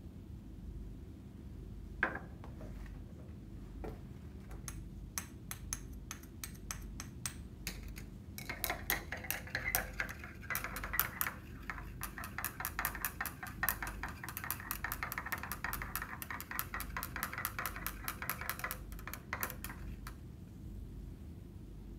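A glass stirring rod clinks rapidly against the inside of a small glass beaker while stirring powdered calcium hydroxide into dilute hydrochloric acid. The clinking is densest through the middle and stops a couple of seconds before the end. A single sharp tap comes about two seconds in.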